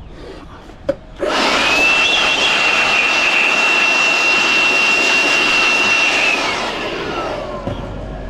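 Stihl MSA 160 C battery chainsaw: a sharp click, then the electric motor and chain spin up almost at once to a steady high whine with a rushing chain noise, run for about five seconds, and wind down in a falling whine when released.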